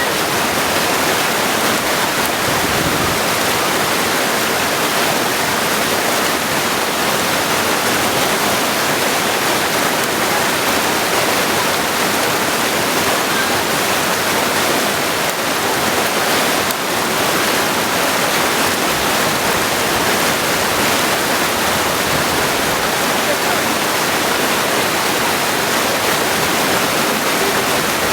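Mountain stream rushing and splashing over stones, a steady, loud water noise with no change.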